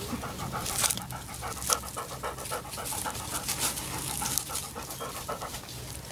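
A Labrador retriever panting in quick, even breaths, with a few sharp clicks about a second and two seconds in.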